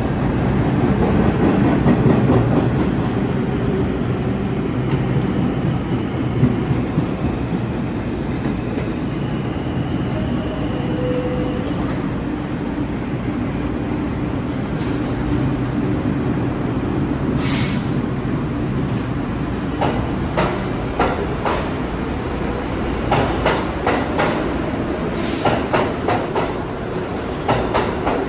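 New York City subway train running through the station with a loud, steady rumble. There is a faint wheel squeal partway through and two short high hisses. Over the last several seconds the wheels click sharply over the rail joints.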